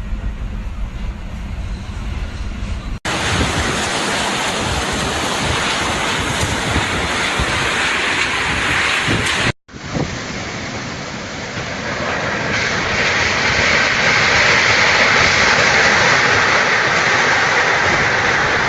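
Storm wind rushing and buffeting the microphone, with a loud steady hiss of wind-driven heavy rain. The sound changes abruptly twice, about three and about ten seconds in: first a low rumbling buffet, then an even rushing hiss that grows louder and brighter toward the end.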